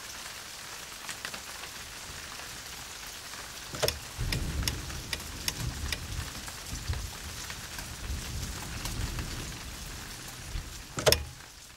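Steady rain hiss with scattered drops ticking. A low rumble comes and goes in the middle, and there is a sharper knock near the end.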